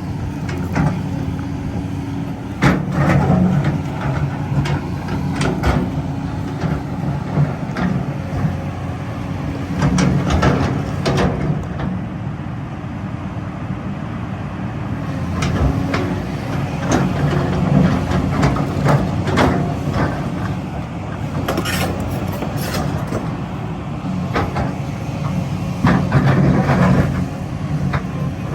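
Kobelco 380 excavator's diesel engine running, its hum swelling and easing every several seconds as the machine works, with frequent sharp knocks and clanks over it.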